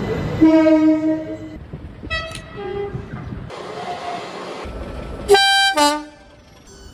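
Train horns sounding a series of blasts in chords of several tones: a long blast about half a second in, a few short toots in the middle, and two short, loud blasts near the end. A low rumble of the moving train runs under the first blasts.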